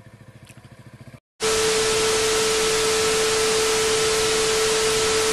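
A motorcycle engine running faintly, cut off about a second in. After a brief gap, loud television static hiss with a steady beep tone begins: a glitch-transition sound effect.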